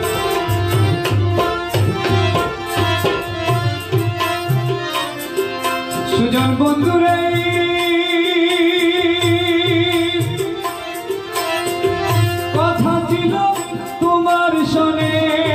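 Harmonium and tabla playing a folk song, the tabla keeping a steady rhythm of low strokes. About halfway in, a male voice slides up into a long, wavering held note over the harmonium.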